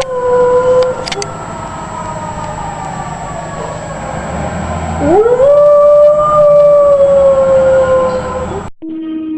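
Dogs howling: a long howl trails off in the first second, and about five seconds in a new howl swoops sharply up in pitch, then is held and slowly sinks for about three seconds. Near the end it cuts off abruptly and a different steady tone follows.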